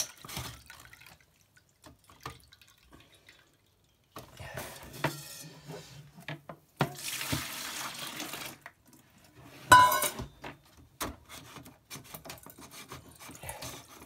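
Water draining from a Miele washing machine's partly unscrewed drain filter, trickling and splashing into a metal bowl in uneven spells. About ten seconds in there is a single sharp metallic clink with a brief ring.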